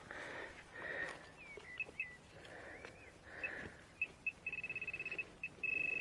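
A handheld metal-detecting pinpointer beeping as it closes on a buried target in the dug hole. A few single high beeps come first, then a fast run of pulsed beeps a little over halfway in, then a solid continuous tone near the end. Soft scuffing of soil comes before the beeps.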